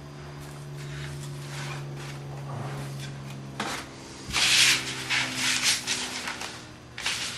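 Thin plastic bag rustling and crinkling as it is cut open and smoothed flat into a single layer, loudest in a burst a little past the middle and again near the end. A steady low hum runs underneath.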